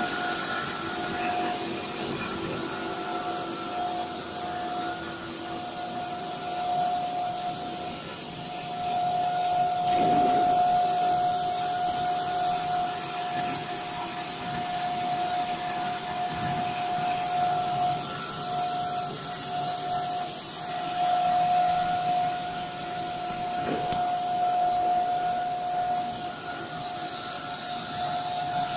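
Plastic corrugated pipe extrusion line running: a steady machine hum carrying a constant whine, with one brief click near the end.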